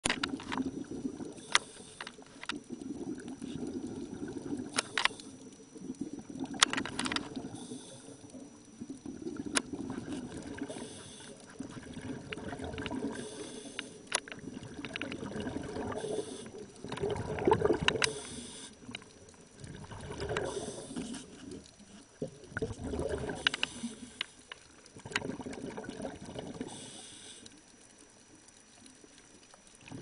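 Muffled underwater sound from a submerged camera: water noise swelling and fading every few seconds, with a few sharp clicks.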